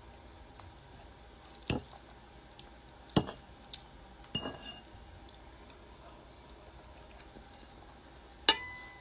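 Cutlery and glassware clinking while eating: four sharp clinks spaced unevenly, the loudest near the end with a brief ringing tone.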